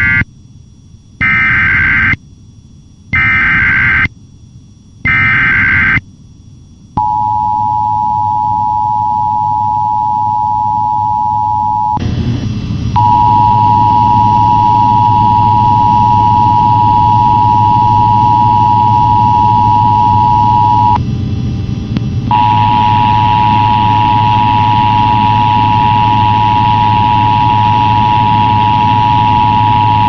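Emergency Alert System SAME header: short screeching bursts of digital data tones, three of them about a second apart, followed after about seven seconds by the EAS two-tone attention signal, a steady dual-pitch tone that drops out briefly twice. A low hum runs underneath.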